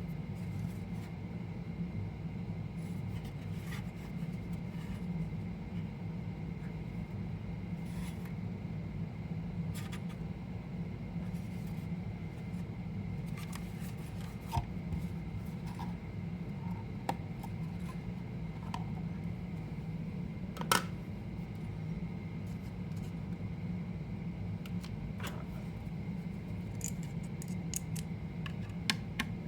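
Small handling sounds of work on a mini PC and its parts: scattered light clicks, taps and rubbing, with a few sharper clicks, over a steady low hum.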